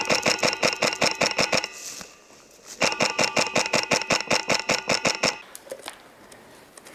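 Polarstar HPA-powered airsoft rifle firing two long full-auto bursts of about ten shots a second, each shot a sharp click with a metallic ring. A few single clicks follow after the second burst.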